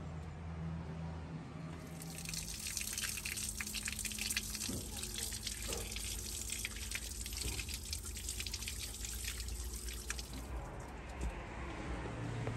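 Water running from a wall tap and splashing over hands being washed. It starts about two seconds in and stops about ten seconds in.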